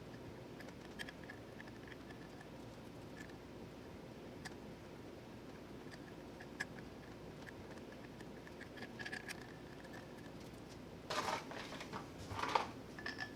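Hand-tapping 1/4-20 threads into an aluminium plate: sparse light clicks and scrapes from the tap and wrench, with a louder run of scraping and clatter near the end.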